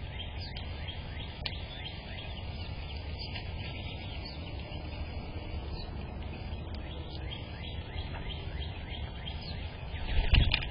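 Small birds chirping throughout over a steady low background rumble, with a brief loud thump about ten seconds in.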